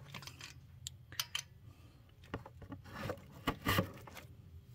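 Metal valvetrain parts from a 5.3 L V8 being pushed one by one into a marked cardboard box, giving scattered light clicks and scrapes. Two louder rustling scrapes come about three seconds in and again just after.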